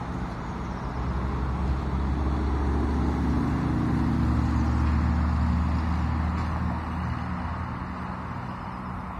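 A low engine hum that swells over the first few seconds and then slowly fades.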